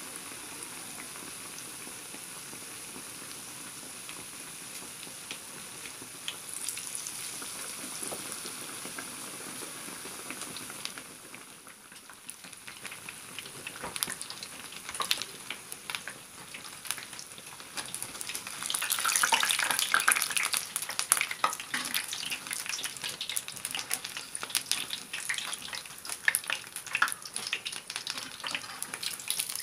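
Gram-flour-battered bread pakoras frying in hot oil in a pan: a steady sizzle that turns into louder crackling with sharp pops about halfway through, loudest around two-thirds of the way in.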